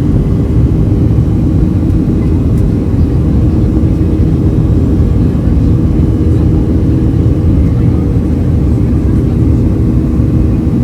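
Boeing 737-300's turbofan engines and airflow heard from inside the passenger cabin: a loud, steady deep rumble with a low hum, unchanging throughout.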